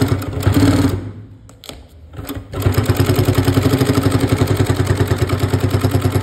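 Dison DS 5942 two-needle walking foot industrial sewing machine stitching through thick leather. It runs, stops about a second in, then starts again near the middle and runs with an even, rapid stitching rhythm.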